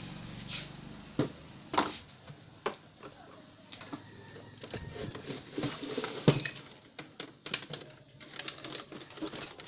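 Scattered clicks and knocks of hands handling tools and TV parts on a workbench, with the sharpest knock about six seconds in.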